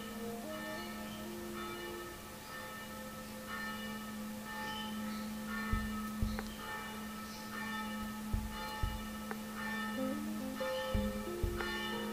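Background music of chiming, bell-like notes over a held low tone, with a few soft low thumps in the second half.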